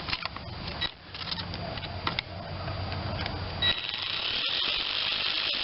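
Scattered clicks of small metal parts and tools being handled, then from about two-thirds in a steady, rapid ratcheting of a socket wrench tightening the air cleaner adapter onto a small-engine carburetor.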